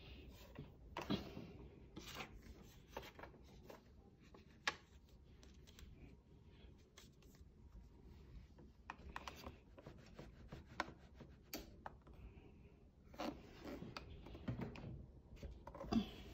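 Hands working with craft materials: scattered rustling and scraping with a few sharp taps, the sharpest about a third of the way in and another near the end.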